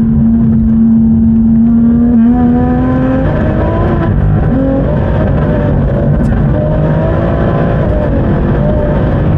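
Big-turbo BMW M140i's three-litre turbocharged straight-six running under way, heard from inside the cabin. Its note dips at a gear change about two seconds in and then climbs again, with small steps in pitch after that.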